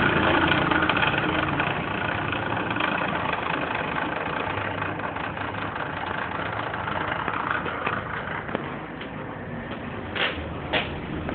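Bulldozer engine running near the house, heard from indoors, with a continuous fine rattling of the building and its contents shaken by ground vibration. The sound eases off slowly, and two short high-pitched sounds come near the end.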